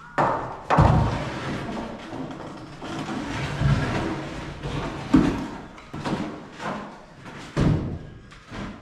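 Wooden roosting-bar frame being handled and fitted into a wooden chicken coop: irregular knocks and thuds of lumber against lumber, with a few sharper bangs.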